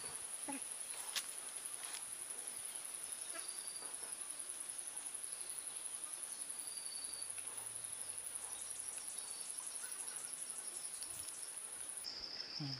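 Steady high-pitched trilling of insects in the surrounding vegetation. About a second from the end it switches abruptly to a lower-pitched trill.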